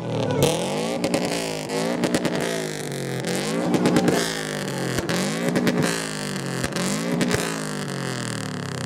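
Car engines revved hard over and over, the pitch climbing and dropping about once a second, with sharp cracks between some of the revs.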